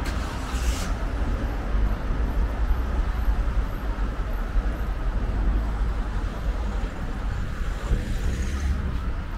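Road traffic on a town street: cars moving and idling past, heard as a steady low rumble with a brief hiss right at the start.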